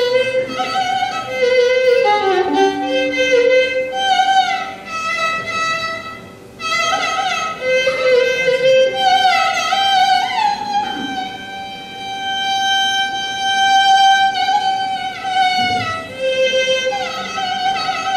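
Carnatic violin playing a slow melody in raga Vasantha, with sliding ornaments between long held notes, starting suddenly at the beginning.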